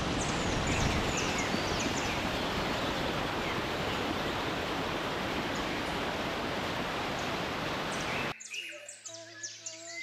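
Steady rush of a waterfall, with birds chirping faintly over it. It cuts off abruptly a little over eight seconds in, giving way to music with birdsong.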